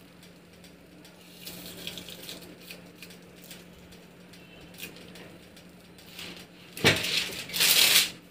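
Manual cold lamination roller being hand-cranked, with faint clicks and rubbing from the crank and rollers over a faint steady hum. Near the end come two loud rustling scrapes, together about a second and a half long, from the sheet and film being handled.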